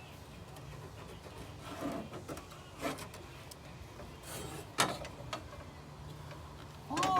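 Handling noises: faint rubbing and a few light knocks over a low steady hum. A short high pitched call, like a voice, starts right at the very end.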